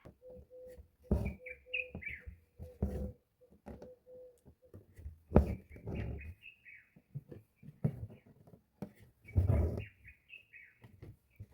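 Small birds chirping in three short bursts, over several soft thumps and rustles that are louder than the chirps, with a faint steady hum near the start.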